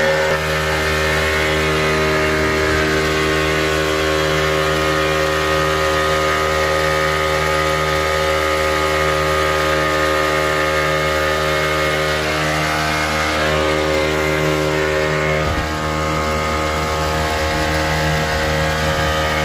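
Motorboat engine running at a steady speed under way, with the rush of water along the hull.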